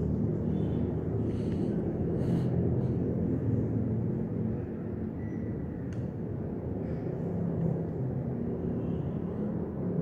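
Steady low rumble and airflow noise of a Panasonic CS-U10TKP 1 HP inverter split air conditioner running with the remote set to 16 °C, with a few faint ticks.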